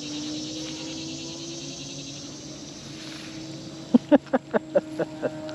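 A steady motor hum on one low note, under a high, fine insect buzz. Near the end comes a quick run of about eight short, pitched chirping calls.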